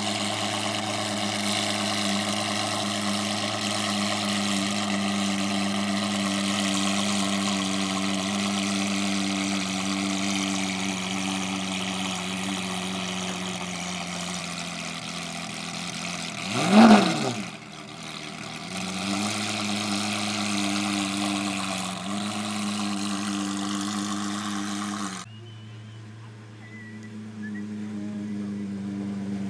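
Lamborghini Aventador SV's V12 idling steadily, with one quick throttle blip about halfway through that is the loudest moment. The idle sags briefly after the blip and settles, and the sound gets quieter near the end.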